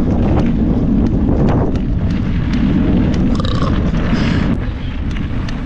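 Mountain bike riding fast down a dirt forest singletrack, picked up by a handlebar-mounted camera: a loud low rumble of wind on the microphone and tyre noise, with frequent sharp rattles and clicks as the bike bounces over the trail.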